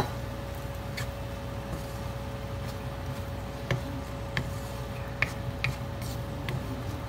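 Wooden spatula stirring diced pork lung in a stainless steel pan, knocking and scraping against the metal in sharp, scattered clicks. A steady faint hum runs underneath.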